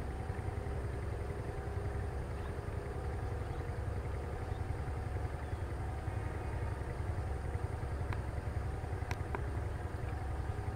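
Diesel-electric locomotive engine rumbling steadily as the train approaches slowly, with a few sharp clicks near the end.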